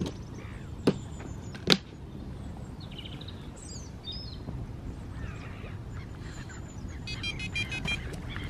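Two sharp clicks from handling carp rods on a rod pod with bite alarms, about one and two seconds in, over a steady low wind rumble on the microphone. A bird chirps briefly midway, and a short rapid run of high pitched pulses sounds near the end.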